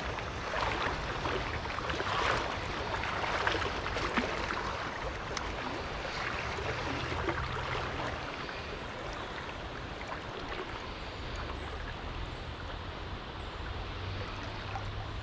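Creek water running high after a storm, rushing steadily, with a few light clicks in the first few seconds.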